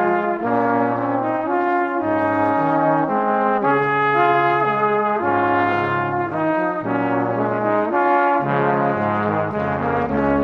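Background music carried by a brass-like melody, the notes changing about every half second over a steady accompaniment.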